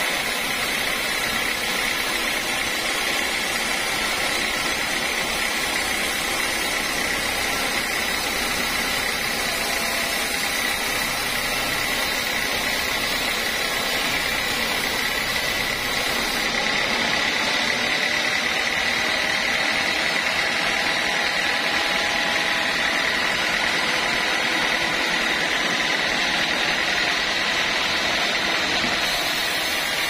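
Band sawmill running and cutting through a teak log: steady machine noise with a constant high-pitched whine, a little louder after about 17 seconds.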